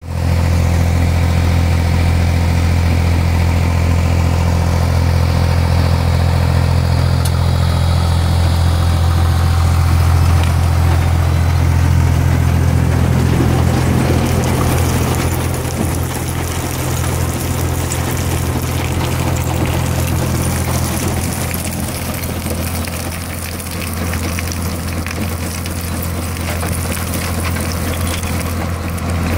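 A Red Rhino 5000 mobile jaw crusher and a mini excavator working: a steady, deep diesel engine hum, with the rattle of broken concrete being crushed and pouring off the conveyor belt. The hum drops a little about halfway through.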